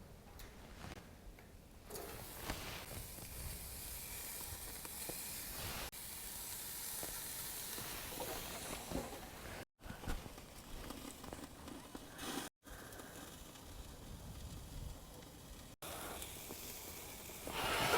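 Burger patties sizzling on the grate of a two-burner portable propane grill, a steady hiss broken by a few short silent gaps.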